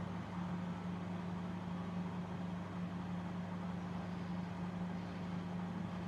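Sharp Koki Pintar microwave oven running, a steady low hum with the fan's even whir underneath.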